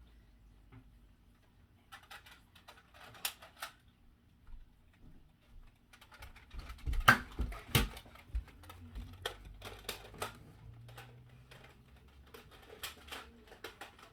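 Scattered light clicks and taps, with a denser run in the second half and two louder knocks about seven and eight seconds in.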